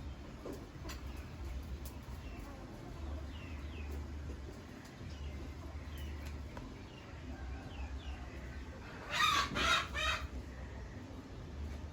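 Animal calls: faint short chirps, then a loud burst of three quick pitched calls about nine seconds in.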